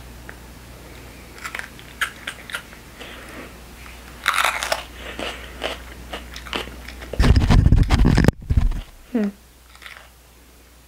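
Crisp jalapeno flesh crackling and snapping in short clicks as fingers tear it open to pick out the seeds. About seven seconds in there is a loud low rumble lasting about a second and a half.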